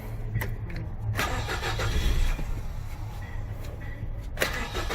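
2007 Nissan Frontier's 2.5 L four-cylinder engine running steadily, with a couple of sharp knocks about a second in and near the end. The owner suspects bad fuel is keeping it from running properly.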